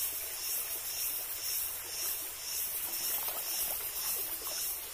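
Insects chirping in a steady pulsing rhythm, about two pulses a second, over the even rush of a flowing stream.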